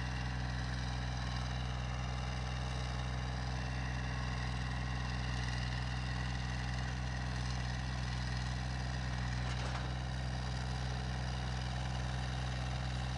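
Compact tractor engine running steadily at a constant speed, like an idle, with no revving.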